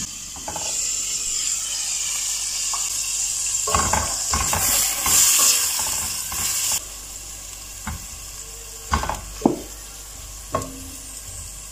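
Beef pieces sizzling in hot palm oil in a stainless steel pot, stirred with a silicone spatula that knocks and scrapes against the pot. The sizzle drops away suddenly about two-thirds of the way through, leaving a few sharp taps of the spatula on the pot.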